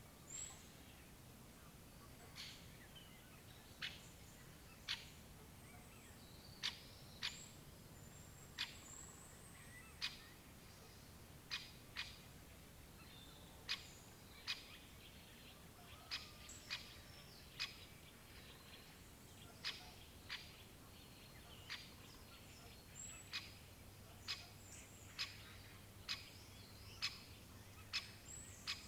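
Great spotted woodpecker giving short, sharp 'kik' calls, repeated irregularly about once a second and sometimes in quick pairs.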